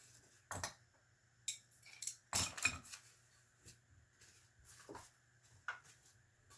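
Small metal tools and engine parts clinking and knocking as they are picked up and set down, in scattered separate knocks with a louder clatter about two and a half seconds in.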